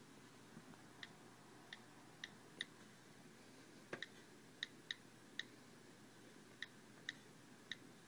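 Key clicks from an iPod touch 4G's on-screen keyboard as a command is typed: about a dozen short, sharp ticks at an uneven typing pace, with one duller knock about four seconds in.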